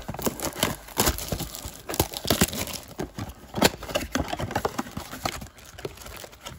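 Clear plastic wrap torn off a cardboard trading-card box and crinkled, then the cardboard box opened and the card packs inside handled: a run of irregular crackles, rustles and taps.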